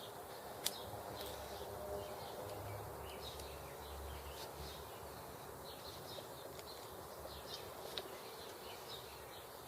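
Quiet background with faint, scattered high chirps and a single sharp click about a second in.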